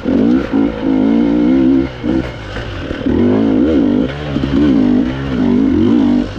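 Enduro dirt bike engine revving up and down under constant throttle changes, with several short throttle-offs between bursts. Its pitch swings up and down sharply about three to four seconds in.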